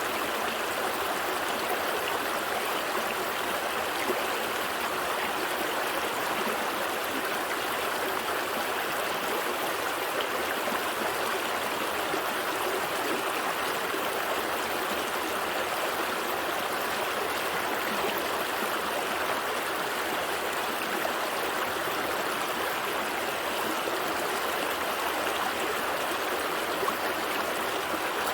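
A small stream flowing and gurgling over rocks, a steady rush of running water.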